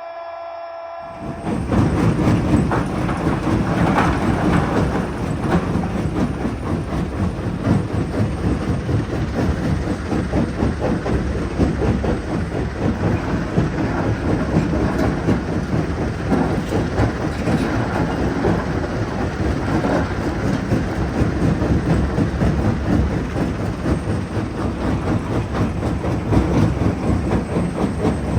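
Jonsson 1208 mobile jaw crusher running and breaking rock: a loud, continuous clatter of stone over a low machine rumble. It starts about a second in.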